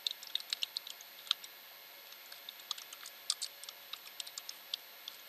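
Computer keyboard typing: a run of quick, irregular key clicks as a command is typed in.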